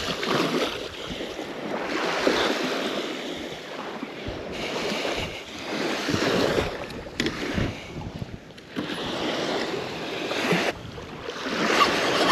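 Wind buffeting the microphone in uneven gusts over small waves washing onto a sandy beach.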